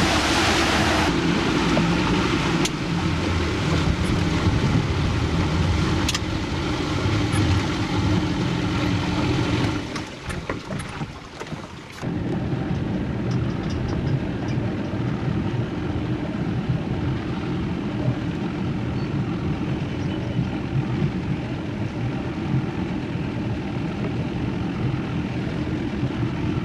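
Motorboat engine running, with wind rushing over the camcorder microphone. About ten seconds in the sound drops out briefly, then carries on as a quieter, duller steady engine hum.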